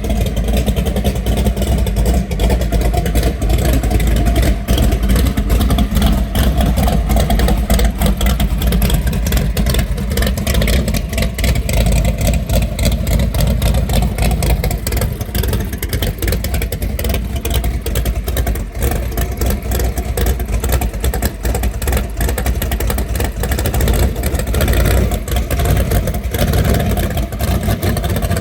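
A motor vehicle running steadily, a continuous low engine and road rumble without breaks.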